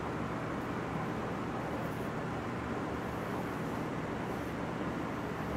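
Steady background rumble and hiss with a faint low hum, even throughout, with no distinct strokes or knocks standing out.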